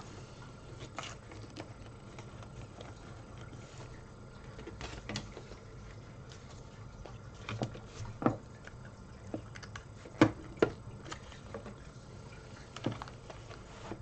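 Scattered clicks and knocks of plastic connectors being handled: an IDE ribbon cable and a Molex power plug being fitted to a bare hard drive. The sharpest clicks come about 8 and 10 seconds in, over a steady low hum.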